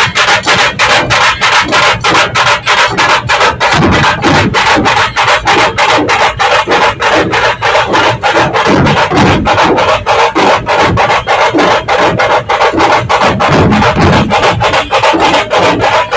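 Massed dhol drums, large rope-tensioned barrel drums struck with sticks by a procession drum troupe, pounding a fast, steady rhythm.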